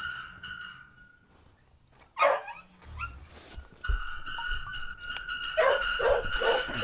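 A dog barking: one loud bark falling in pitch about two seconds in, then a quick run of short barks near the end.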